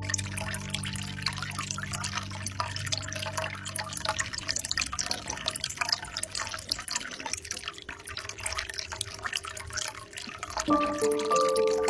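Water trickling and dripping from a bamboo spout, a dense fine patter. Soft held music tones fade out over the first few seconds, and a gentle melody comes back in near the end.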